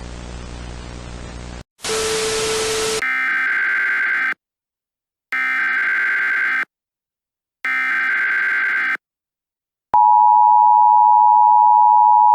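Emergency Alert System broadcast signals. First a buzzy static hiss, then a brief louder hiss, then three shrill screeching SAME header data bursts about a second apart. About ten seconds in comes the steady, harsh two-tone EAS attention signal.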